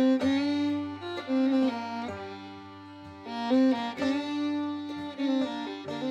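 Instrumental background music with a fiddle playing the melody.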